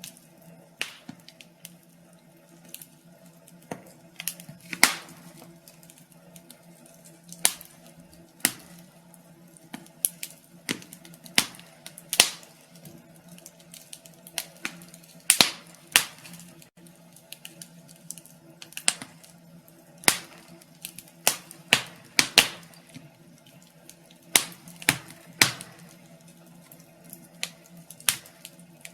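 Fireplace fire crackling: irregular sharp pops and snaps, some loud and some faint, over a faint steady low hum.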